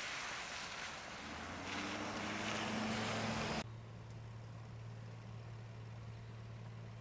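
Pickup truck driving through standing water on a wet road, its tyres hissing and splashing and its engine rising as it passes, cut off abruptly a little past halfway. After that a quieter steady low hum.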